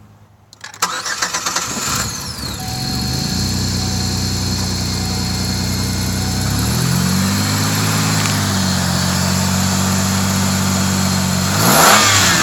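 2005 Chevrolet Equinox's 3.4-litre V6 cranked and started, then idling, with a brief rev about seven seconds in and a quick rev near the end. A light rapping from the bottom end runs under it, which the owner takes for rod knock from wear caused by an oiling problem.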